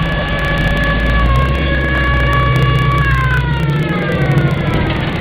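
A siren sounding a steady chord of several tones, which then slides down in pitch over the last two seconds, over the low rumble of classic car engines driving past.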